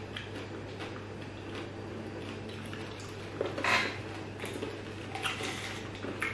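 Small candy-coated chocolates clicking and rattling in a plastic tube and in a hand, with a short louder rattle about three and a half seconds in, over a faint steady low hum.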